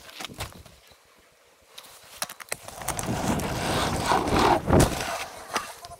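Mountain bike rolling fast down a rough trail: a rush of tyre and wind noise builds from a couple of seconds in, peaks near the end, then eases. Scattered sharp knocks and rattles come from the bike over the rough ground.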